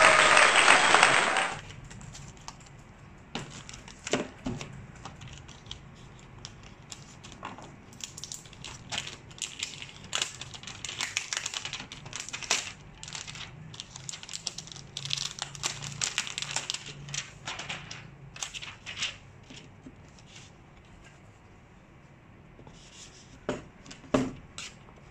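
A loud burst of music and cheering cuts off about a second in. Then comes close-up rustling and crinkling of a thin plastic protective sleeve as hands peel it off a laptop lid, in scattered bursts, with a couple of knocks near the end.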